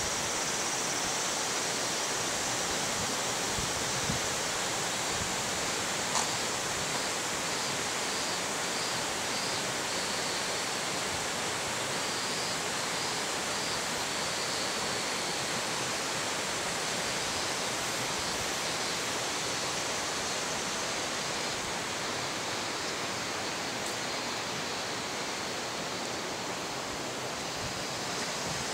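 Mountain stream rushing over rocks: a steady, even rush of water. A few faint clicks and, in the middle, a faint run of repeated high chirps.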